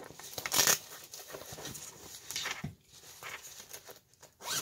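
Fabric dog gear being handled: irregular rustling and scuffing of cloth and straps, with a few short, sharper rasps.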